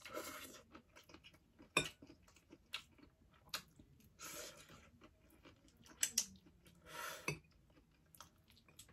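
Close-up eating sounds of a person slurping in and chewing spicy noodles, in a few short bouts, with several sharp clicks in between.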